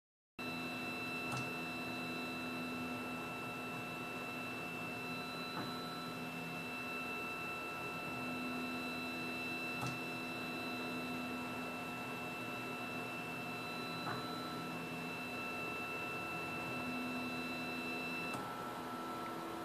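The stepper motors of a 3D printer driving a 445 nm diode laser head through a photo-engraving pass run steadily, with a high steady whine, lower tones that shift every few seconds and a faint click about every four seconds. The high whine cuts off near the end as the laser switches off at the end of the engraving.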